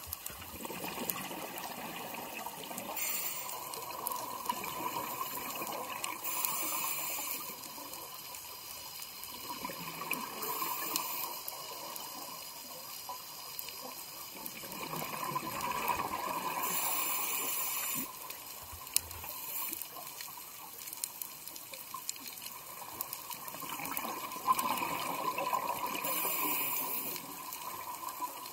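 Scuba breathing heard underwater through a regulator: rushes of exhaled bubbles come back every few seconds over a steady watery hiss.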